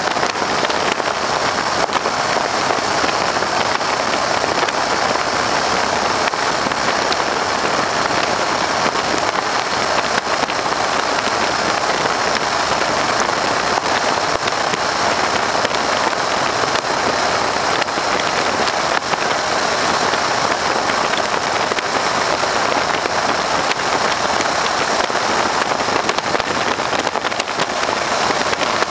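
Steady in-flight noise of an open-cockpit Stearman biplane: wind rushing over the microphone, with the radial engine's sound blended into it.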